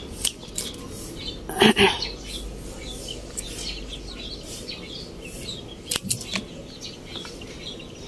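Pruning shears snipping back a blue ternate vine: a few short, sharp cuts among rustling leaves, the loudest about two seconds in and two more about six seconds in.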